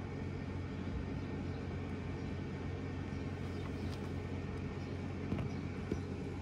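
Steady low outdoor rumble, with two faint clicks about five and six seconds in.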